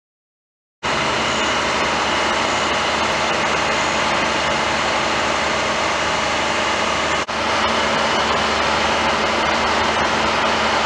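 Steady, loud roar of vehicle engines and traffic, starting suddenly under a second in, with a brief dropout about seven seconds in.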